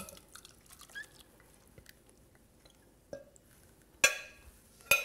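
Thick, wet grits casserole mixture sliding and being scraped out of a glass mixing bowl into a pot, with faint soft squelches and small scrapes. Near the end a metal spoon strikes the glass bowl twice, two sharp ringing clinks about a second apart.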